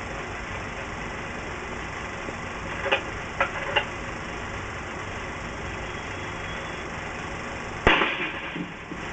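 An old spoked-wheel field cannon fires once, a sharp bang with a short fading tail, near the end. Three short knocks come a few seconds earlier. A steady hiss of an old film soundtrack runs underneath.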